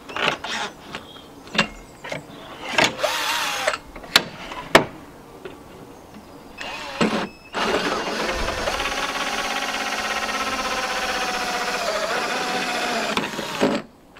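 Cordless drill running a hole saw through a boat's fibreglass hull: a few clicks and short stop-start bursts, then a steady run of about six seconds that cuts off suddenly near the end.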